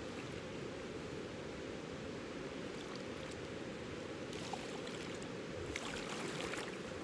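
Steady rush of river water, with the splashing of a person wading through it in waders, strongest about four and a half and six seconds in.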